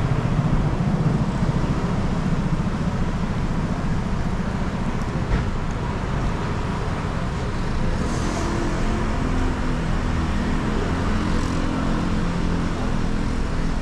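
City street traffic at night: cars moving slowly past close by, a steady engine rumble with tyre hiss on the wet road. A single short knock comes about five seconds in.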